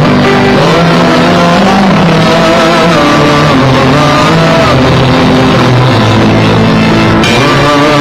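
Instrumental film score: sustained low notes under a slowly wavering melody line.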